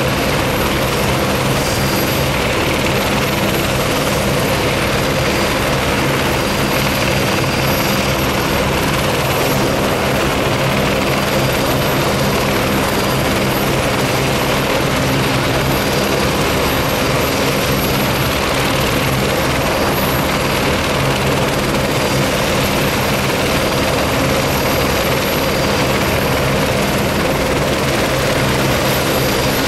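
Helicopters running on the ground: a steady rotor and turbine sound with a thin, high whine over it, holding even throughout.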